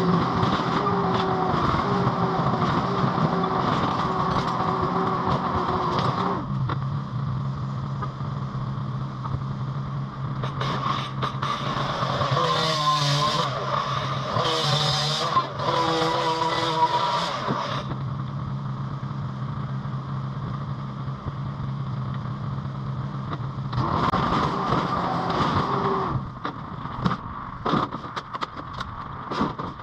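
Mini skid steer engine running steadily, revving up under hydraulic load at the start and again near the end. In the middle, several seconds of wavering squeal and scraping, typical of sheet metal being crushed and dragged. Scattered knocks follow near the end.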